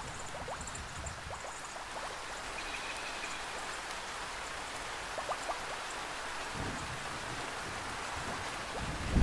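Steady rainfall hiss with scattered individual drips and a few faint high chirps. A low rumble comes back in about two-thirds of the way through.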